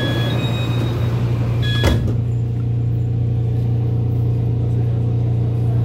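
Steady low electric hum of a TRA EMU800-series commuter train moving along the platform. Brief high beeping tones sound in the first two seconds, with a single sharp clunk about two seconds in.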